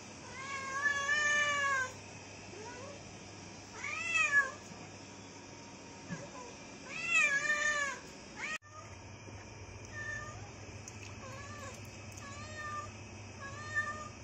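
Tabby cat meowing to be fed: three long, loud meows that rise and fall in pitch, then, about two-thirds of the way in, a run of shorter, quieter meows.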